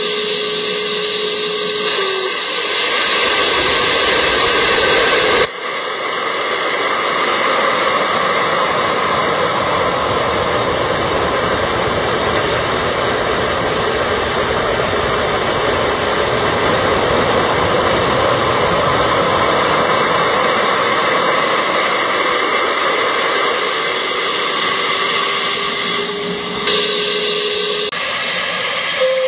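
Steady rush of air drawn through a 38 mm PWK Airstriker carburettor and MRE VF2 reed cage on a flow bench. Near the end the sound changes to a VF3 reed set flowing fluttering and turbulent.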